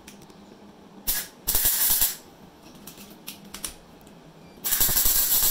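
Arc welding crackling in three short bursts: a brief one about a second in, a longer one just after, and another near the end. These are short weld runs on a motorcycle chain sprocket shaft being repaired.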